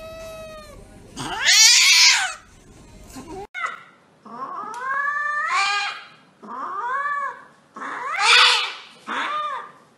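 Domestic cats yowling while held down for handling, each long call rising and then falling in pitch. A first cat gives two yowls, the second one loud. After a cut about a third of the way in, another cat gives a run of four yowls about a second apart.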